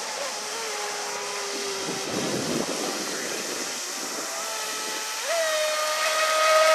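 Electric RC speedboat's brushless inrunner motor (3660-size, 3060 kV) whining at speed over the hiss of water spray. About five seconds in, the whine steps up in pitch and gets louder.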